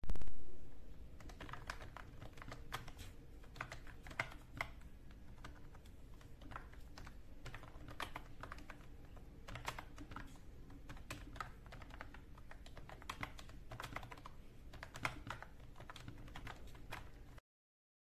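Typing on a Mofii 666 wireless keyboard with round typewriter-style keycaps: an irregular run of key clicks that cuts off suddenly near the end. A brief loud noise comes right at the start.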